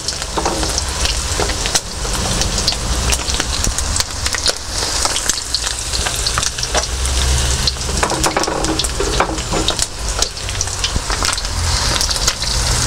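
Breaded chicken wings deep-frying in hot oil in a steel wok: a dense, steady sizzle full of small pops, with a low rumble underneath.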